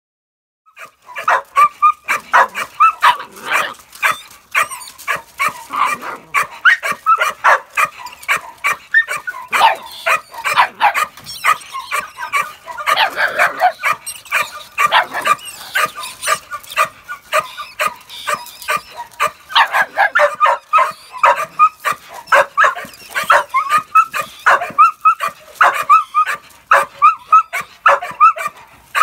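Bull terrier puppies yapping and yelping in rapid, near-continuous bursts, starting about a second in: excited barking at a rat caught in a wire cage trap.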